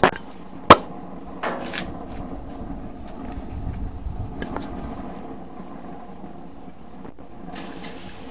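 A few knocks and one sharp clack under a second in, then an aerosol can of cooking-oil spray hissing onto the hot steel griddle plate of a gas grill near the end, greasing the plate for frying.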